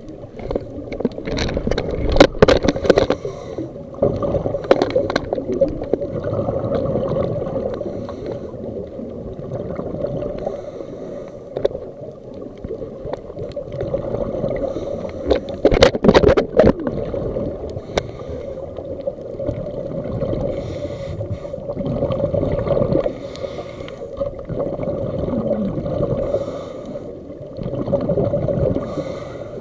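Scuba diving heard through an underwater camera: a steady muffled water rumble, with louder surges of bubbling from divers' regulator exhalations, strongest about two seconds in and again around sixteen seconds.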